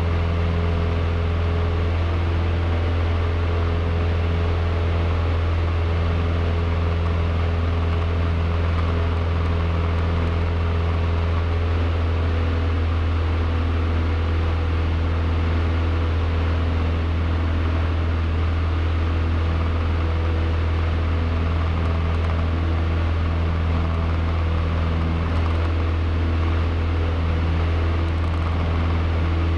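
Cessna 152's four-cylinder Lycoming engine and propeller droning steadily in flight, heard inside the cockpit, with a deep hum and the same level throughout.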